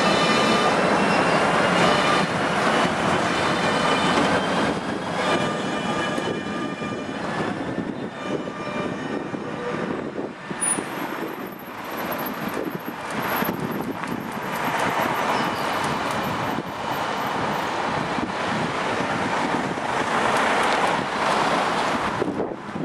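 Tatra KT8D5.R.N2P articulated tram pulling away: its traction drive whines in several tones, one rising slightly, over the first eight seconds or so, over the rumble of wheels on rail. This then gives way to steady street traffic noise, with a thin high whistle lasting about seven seconds in the middle.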